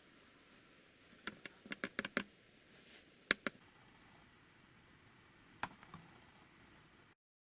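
Light, sharp clicks of a laptop being handled. There is a quick run of about six a little over a second in, then two louder single clicks around the middle and two more later, after which the sound cuts off.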